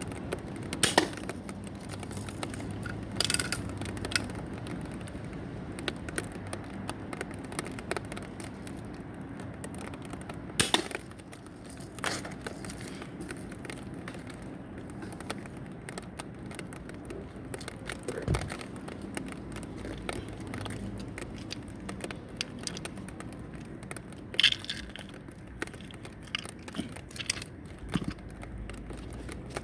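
Scattered sharp cracks and clicks over a low, steady background, the loudest about a second in, near three seconds, around ten and a half seconds and near twenty-four seconds.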